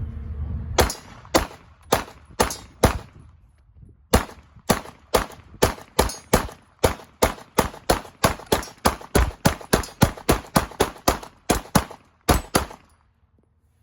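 Two Glock 19 9mm pistols firing about thirty shots. The first five are spaced about half a second apart. After a pause of about a second comes a fast, steady string of roughly three shots a second, which stops about a second before the end.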